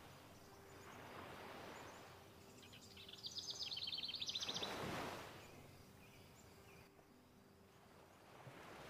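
Faint outdoor ambience with soft swells of noise; about three seconds in, a bird gives a rapid high trill of chirps lasting about two seconds.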